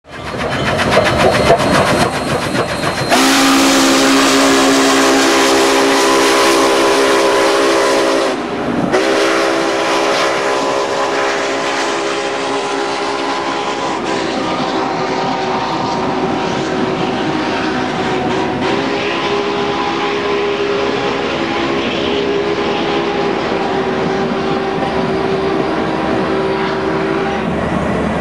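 Union Pacific 844, a 4-8-4 steam locomotive, passing at speed and blowing its steam whistle. The whistle is a chord of several tones, loudest from about three to eight seconds in. Near the middle the tones drop and waver as the engine passes, then the chord carries on more quietly over the steady roll and clatter of the passenger cars' wheels.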